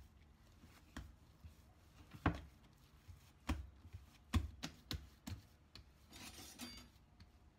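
Sweet bread dough being kneaded by hand on a plastic cutting board: irregular soft knocks as it is pressed and pushed against the board, then a brief rubbing hiss near the end as it is rolled into a log.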